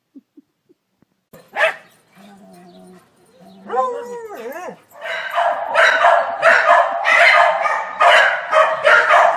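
Corgi barking in a rapid run, about two barks a second, from about five seconds in, after a short wavering whine.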